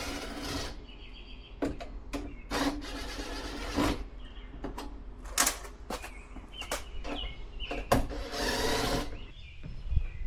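Hand-tool and hardware work: a string of sharp clicks and knocks, with three short whirring bursts of a power tool, each about a second long, near the start, a few seconds in and near the end.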